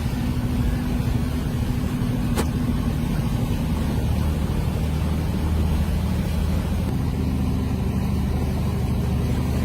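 Motor vehicle engine running steadily with a low hum, and a single sharp click about two and a half seconds in.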